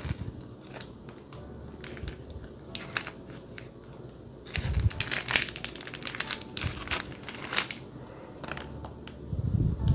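Thin clear plastic sleeve crinkling and crackling as a fountain pen is slid out of it, with a louder, denser run of crinkles about halfway through.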